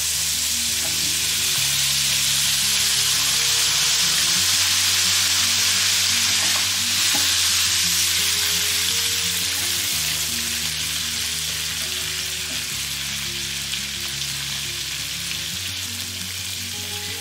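Fresh broccoli florets sizzling loudly in hot butter in a nonstick wok, stirred with a wooden spoon. The sizzle is strongest a few seconds in and slowly fades toward the end.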